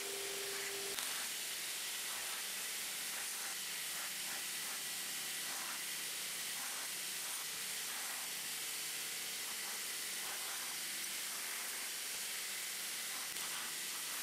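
Belt grinder running with a steel knife blade pressed against the abrasive belt, a steady grinding hiss as the bevels are rough-ground. A steady hum cuts off about a second in.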